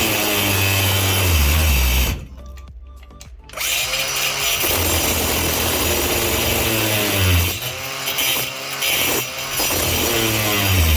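Power cutting tool notching a stuck fastener so a screwdriver can turn it. The motor's pitch rises and falls as it bites. It stops briefly about two seconds in, runs again, and drops off for a moment around eight seconds.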